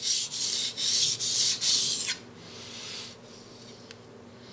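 Blue-steel nakiri blade ground on a coarse 320-grit Nubatama Bamboo waterstone, a rhythmic scraping of quick back-and-forth strokes that stops about two seconds in.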